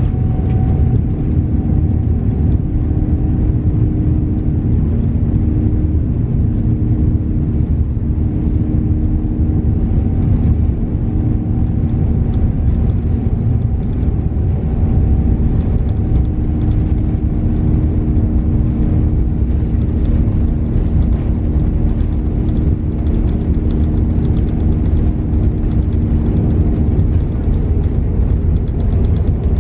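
Boeing 787 Dreamliner heard from inside the cabin while rolling on the ground: the steady low rumble of its General Electric GEnx-1B engines and wheels, with a steady hum over it.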